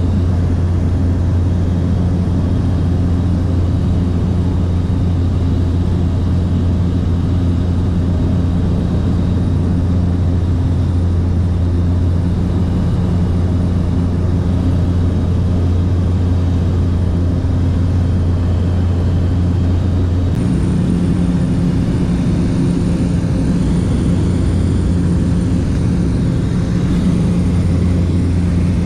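Small propeller plane's engine droning steadily, heard inside the cabin. About twenty seconds in, the low hum changes pitch and settles into a new steady tone.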